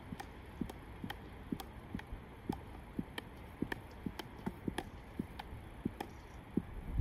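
Field hockey stick tapping a ball into the air over and over, the ball bouncing on the artificial turf between touches: an even run of light taps, two or three a second.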